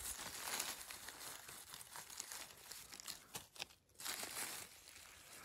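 Irregular rustling and crackling of dry leaf litter on the forest floor, with a few sharper cracks about three to four seconds in.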